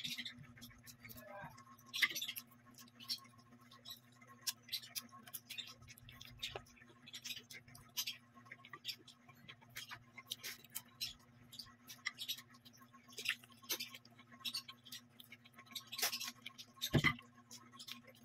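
Eating sounds: chewing and mouth smacks with fingers picking rice and chicken off a plate, heard as many small irregular clicks and ticks over a steady low hum, with a louder thump near the end.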